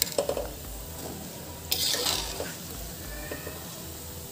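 Mathri (flour crackers) sizzling in hot oil in a kadhai, while a steel slotted skimmer clinks and scrapes against the pan as the fried pieces are lifted out. There are a few light clinks near the start and a louder burst of hissing and scraping about two seconds in.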